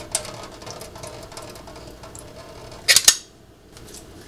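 Syrup from a can of pear slices draining in a thin stream into a stainless steel sink, with a sharp metal clatter about three seconds in.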